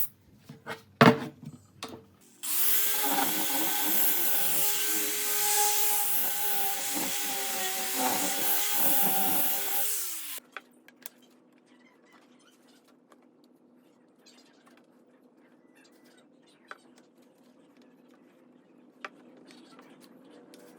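A few knocks, then a power tool starts about two seconds in and runs steadily on wood for about eight seconds before switching off and spinning down. Afterwards only a faint hum and a few light clicks remain.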